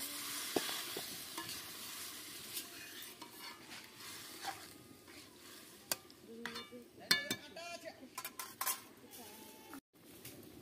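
Cauliflower curry sizzling in a metal wok over a fire, the hiss dying down over the first few seconds. Then a metal spatula scrapes and clinks against the pan, with a few ringing metal strikes.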